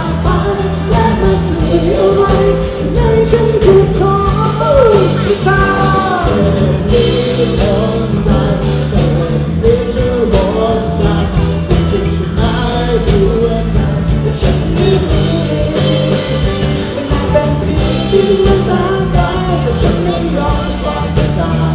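Live band playing a pop-rock song with a singer's voice over it. It is heard through a muffled, unclear audience recording with no treble.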